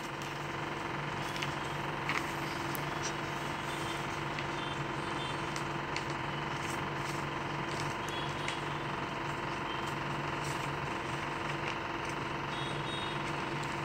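A steady low mechanical hum with hiss, and a few faint crackles of a sheet of paper being creased and folded by hand.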